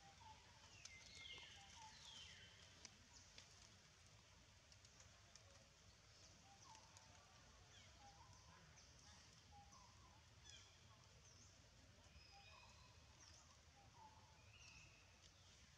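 Near silence with faint scattered bird chirps, including two falling whistled calls about two seconds in.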